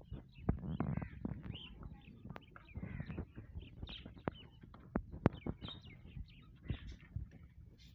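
Cockatiels chirping and calling, many short overlapping calls, with a few sharp clicks in between.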